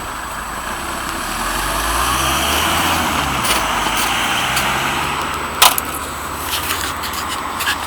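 A motor vehicle going past on the road, its engine and tyre noise swelling and then fading, with one sharp metallic click about five and a half seconds in.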